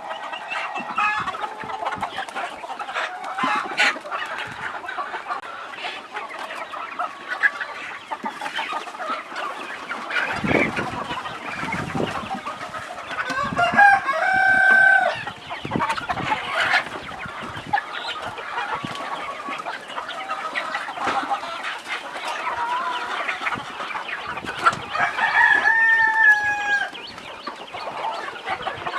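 A flock of free-range chickens clucking continuously, with a rooster crowing once about halfway through and again near the end.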